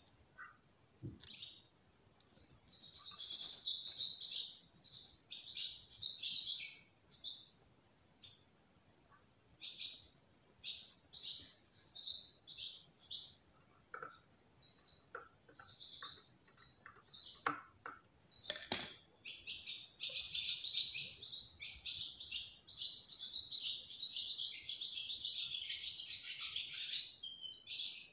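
Small birds singing and twittering in repeated high phrases, ending in a long continuous warbling song near the end, with a couple of sharp clicks a little after halfway.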